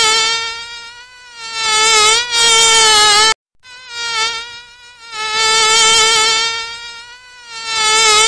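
Mosquito wing whine: a thin, high buzz at a steady pitch that swells and fades several times. It breaks off suddenly about three and a half seconds in and starts straight up again.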